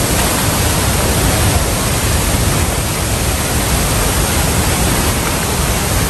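La Fortuna Waterfall plunging into its pool: a loud, steady rush of falling water and spray.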